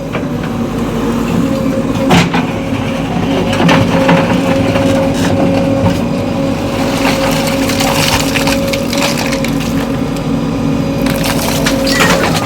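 Backhoe loader's diesel engine running steadily under load, with scattered cracking and crunching knocks as the bucket works the soil.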